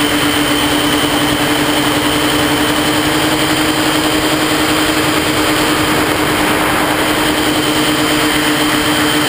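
A tricopter's three electric motors and propellers running steadily in flight, a constant whine with a high tone over a rushing of air, heard close from the onboard camera.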